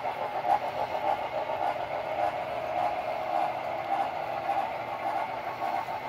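HO-scale model freight trains running on the layout track, a steady running sound.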